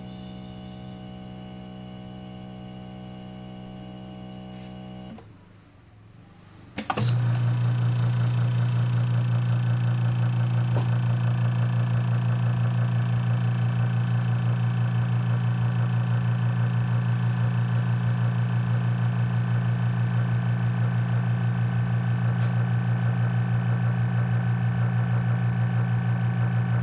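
Vacuum pump of an OCA vacuum laminating machine switching on about seven seconds in and running with a loud, steady buzzing hum, drawing the chamber down to vacuum. Before it, a quieter steady hum cuts off about five seconds in.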